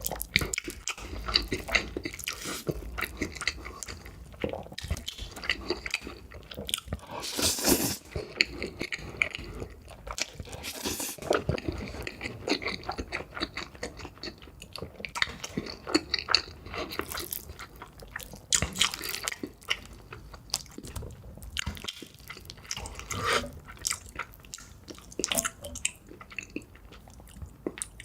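Close-miked eating of ramen noodles: chewing and wet mouth sounds, a dense run of small clicks and crackles, with a few longer noisy bursts scattered through.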